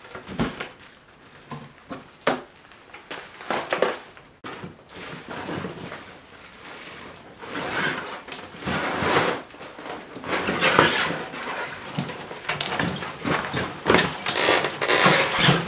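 Plastic wrapping and foam packing rustling and crinkling as they are pulled out of a plywood crate, with several sharp knocks and bumps against the wood.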